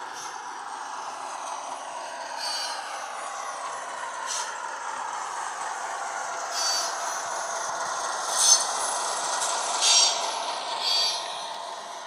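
Sound decoder in a Heljan Class 58 model locomotive, playing the Class 58's Ruston diesel engine under power through the model's small speaker, its pitch gliding as it runs. Short, high squeaks or clicks come about seven times, the loudest a little after the middle.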